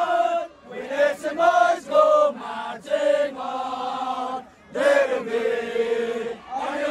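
Football supporters chanting in unison at close range: a group of young men's voices in loud, sung phrases, with short breaks between the chants about half a second in and again about four and a half seconds in.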